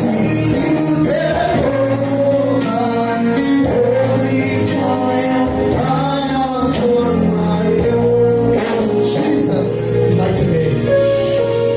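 Gospel music with singing voices over sustained keyboard-like chords and a steady light percussion beat.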